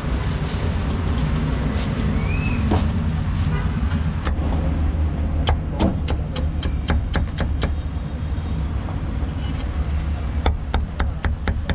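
Steel cleaver chopping crispy roast pork belly on a thick wooden chopping block, in two quick runs of sharp chops at about five a second. Beneath it runs a steady rumble of street traffic.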